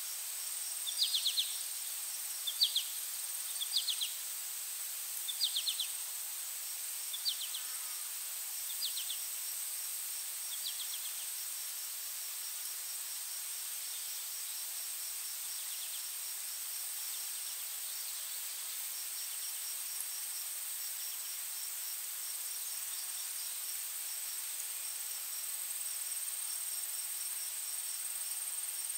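Crickets and other insects trilling steadily: a continuous high whine over a fast, even pulsing chirp. A bird gives a series of short calls during the first ten seconds or so.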